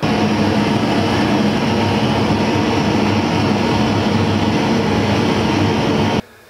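Handheld gas blowtorch flame hissing steadily as it heats a copper pipe joint for soldering. It cuts off suddenly near the end.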